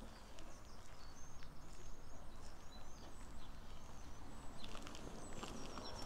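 Small songbirds chirping, many short high calls and quick twitters, with one thin, held high note near the end, over a low background rumble.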